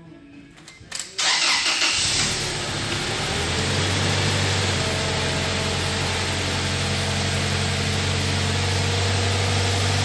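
Toyota 2TR-FE 2.7-litre four-cylinder engine started about a second in, catching quickly and then idling steadily at a raised idle, with a whine rising and then holding alongside it from the secondary air injection pump. This is the test start after the cylinder 1 injector connector was rebuilt to cure a P0301 misfire.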